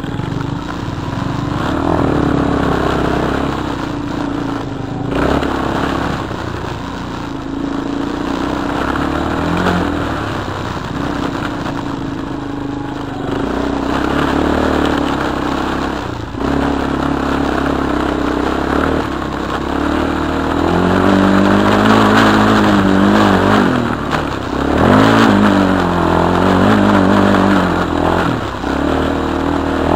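Four-stroke single-cylinder ATV engine pulling along a dirt trail, its pitch rising and falling with throttle and gear changes, with brief let-offs. It revs hardest in the last third.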